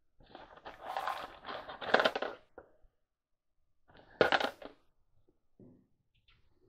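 Loose screws rattling and scraping in a small cardboard box as a hand rummages through them and the box is handled. Two main bursts: a longer one over the first three seconds and a short sharp one a little past the middle.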